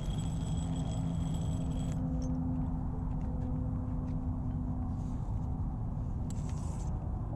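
Wind noise on an outdoor microphone, with a steady low hum underneath and a few faint clicks from a hand handling the fabric awning bag.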